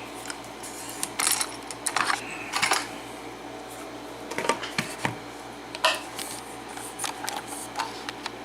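Irregular light metallic clicks and clinks of a just-opened pin-tumbler lock cylinder and lockpicking tools being handled.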